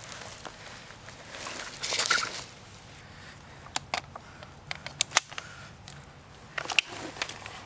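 Rustling and crunching of movement through dry leaves and brush, loudest about two seconds in, followed by a handful of sharp snaps or pops, the last of them close together near the end.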